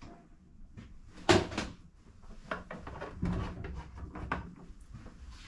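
Metal parts and tools being handled at a lathe: a sharp metal clunk about a second in, then scattered knocks and rattles.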